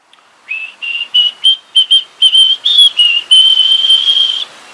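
A tune whistled in a single clear tone: about ten short, quick notes, then one long held note near the end.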